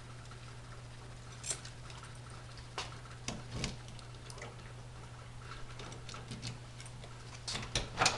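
Keys jingling and clicking in a pickup truck's driver's door lock as the door is unlocked, scattered light clicks with a louder run of clicks near the end as the handle and latch are worked.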